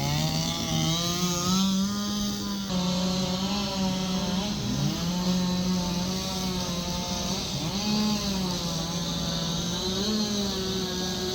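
Two-stroke chainsaw running at high revs throughout, its pitch wavering and dipping now and then as it bites into wood during carving.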